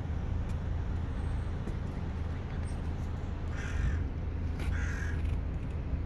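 A crow cawing twice, two harsh calls about a second apart, over a steady low rumble.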